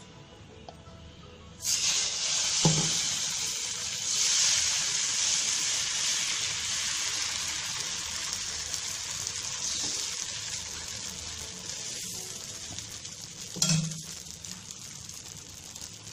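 Dosa batter sizzling on a hot tawa. The hiss starts suddenly about two seconds in as the batter hits the pan and is spread with a ladle, then slowly dies down. Two short knocks of the ladle on the pan come early on and near the end.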